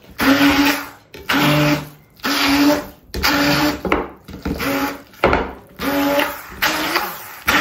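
Immersion hand blender run in short pulses, about eight bursts, each a steady motor whine that starts and cuts off sharply, as it works through thick curd cheese mixed with egg yolk and butter.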